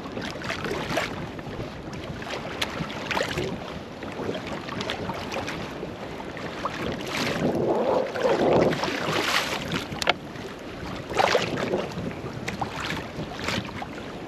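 Water slapping and splashing against a small fishing boat's hull, with wind buffeting the microphone. A couple of sharper knocks come about ten and eleven seconds in.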